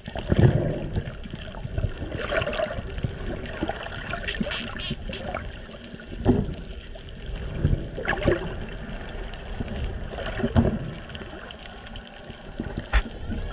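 Spinner dolphins whistling underwater: several high whistles in the second half, each dipping and then rising again in pitch, over a rushing, bubbling water background, with a few sharp clicks.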